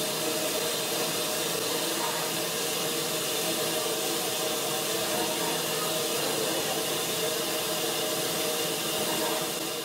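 A steady, even hiss with a faint hum of several held tones under it, unchanging throughout.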